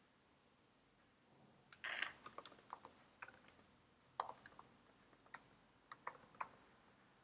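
Typing on a computer keyboard: a run of irregular keystrokes starting about two seconds in and stopping shortly before the end.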